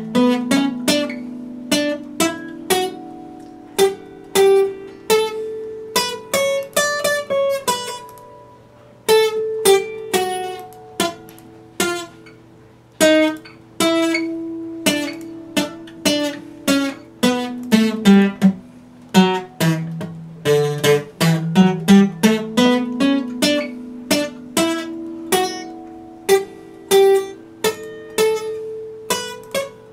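Solo Epiphone steel-string acoustic guitar, fingerpicked: a steady run of single plucked notes and arpeggios that ring on over one another.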